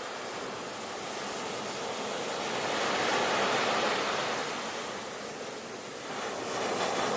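Ocean waves washing onto a shore: a steady hiss of surf that swells about three seconds in, eases off, and builds again near the end.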